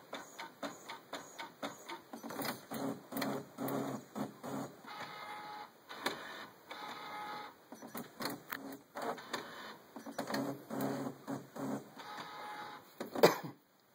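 Brother MFC-J825DW inkjet all-in-one printing a black copy: quick repeated mechanical strokes of the print mechanism, broken twice by a few seconds of steady motor whine, then a sharp click near the end.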